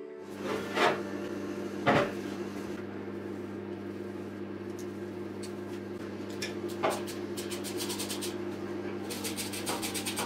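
Metal tools knocking on a steel workbench a few times, then a quick run of clicks near the end as a nut driver turns a screw in an electric motor's wooden terminal block. A steady low electrical hum runs underneath.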